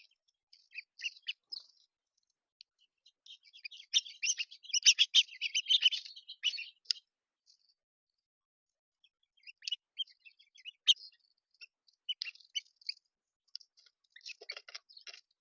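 Small songbirds chirping at a feeder in quick short high calls, thickening into a dense burst of chirps a few seconds in, then falling quiet briefly before scattered chirps return. Sharp clicks mix in near the end.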